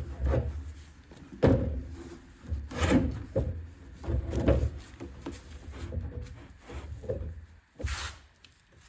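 Irregular knocks, clicks and rubbing from hands working the back straps onto a Stihl BR600 backpack blower's frame, with a few sharper knocks, the last near the end.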